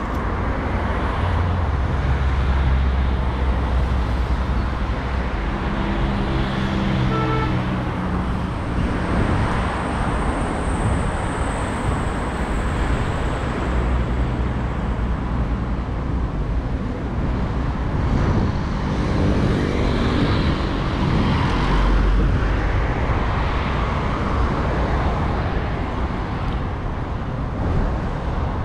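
Steady road traffic on a busy city avenue: a continuous rumble of cars and other vehicles passing, with louder engines going by a few times.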